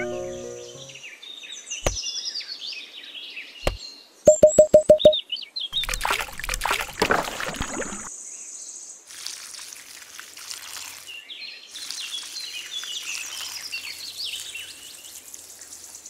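Water poured and splashing from a small watering can, with birds chirping. Two sharp clicks and a loud, quick run of short beeping tones come just after four seconds in.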